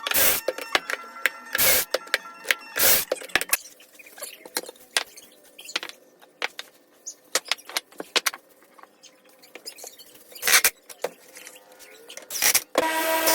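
Workshop clatter: a string of sharp knocks and clicks, a few of them loud, with quieter ticking between. Near the end a power tool starts up with a steady whine.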